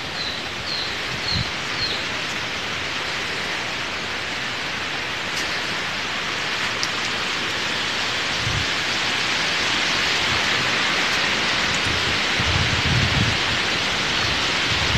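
Steady high hiss of forest ambience that slowly grows louder, with a bird's short chirps repeated about three times a second in the first couple of seconds and a few low bumps.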